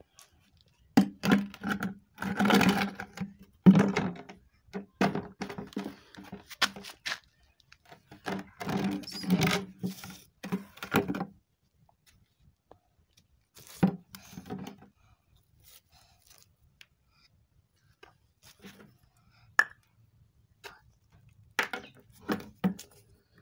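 Plastic sachet-water bags rustling and crinkling as they are handled, in irregular bursts that mostly stop for several seconds in the middle.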